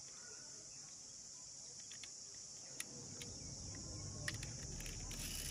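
Steady, high-pitched insect chorus, faint and unbroken. A low rumble grows in under it over the second half, with a couple of small clicks.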